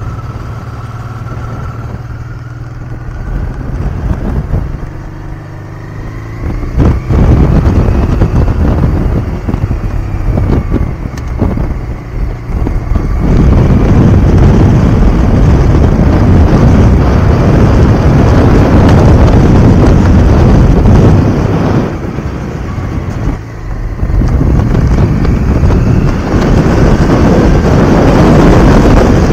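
Honda XL 600 V Transalp's V-twin engine running under way, its note rising as it accelerates, with loud wind on the microphone once at speed. The level drops briefly a little past twenty seconds in, then picks up again.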